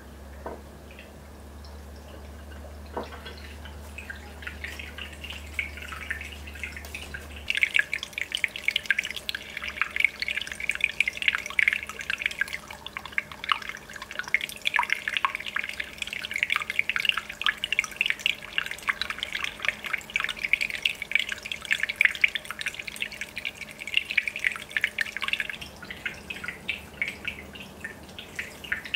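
Aquarium air bubbler: small bubbles popping and water trickling, sparse at first, then a dense, steady run of pops from about seven seconds in. A low hum drops away at the same moment.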